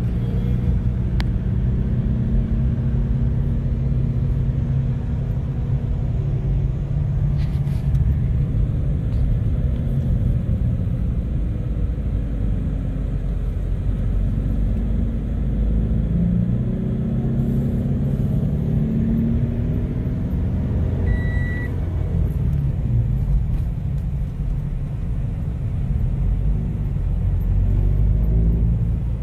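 Scion FR-S's flat-four engine and road noise heard from inside the cabin while the car is driven. There is a steady low engine hum whose pitch shifts now and then as the revs change.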